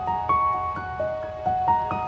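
Background music: a gentle melody of short ringing notes over a light, steady beat.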